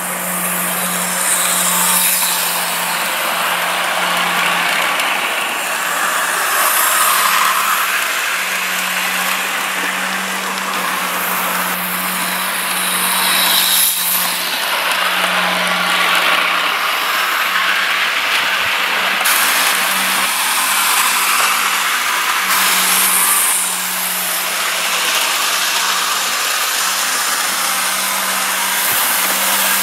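Electric model trains running on sectional track: the motors whir and the wheels run on the rails, getting louder and softer as the trains pass, over a steady low hum.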